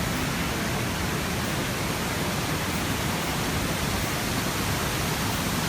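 Waterfall crashing down, a steady, loud rush of falling water with no breaks.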